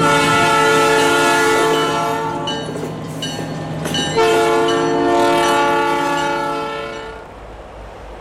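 Diesel switcher locomotive sounding two long blasts on its horn, the second ending about seven seconds in, with the engine running underneath.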